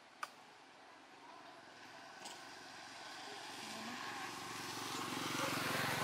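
A motor vehicle's engine drawing closer, growing steadily louder to its loudest near the end, with a sharp click about a quarter second in and a fainter click about two seconds in.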